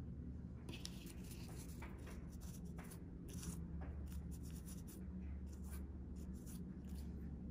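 A cleaning wipe rubbing over an iPhone's glass camera lenses: a run of short, scratchy wiping strokes, starting about a second in and stopping just before the end.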